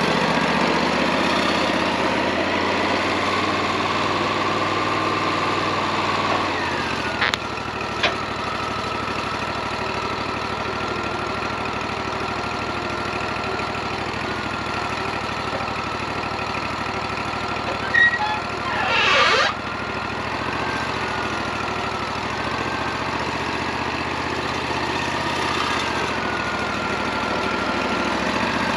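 Wood-Mizer LT40 bandsaw sawmill running steadily, its engine note changing about six seconds in. Two sharp clicks follow soon after, and a brief sweeping whoosh comes about two-thirds of the way through.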